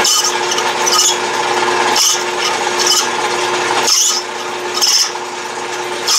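Atlas lathe running with a steady hum while a high-speed-steel tool on a ball-turning attachment is swung across the end of the spinning stock. It cuts a scraping hiss about once a second, forming a radius on the end of the shaft.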